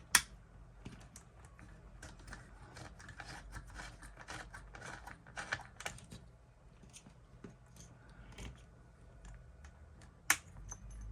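Irregular light clicks and scratches of small parts being handled on an electronics bench, with two sharp clicks, one just after the start and one about ten seconds in, over a faint low steady hum.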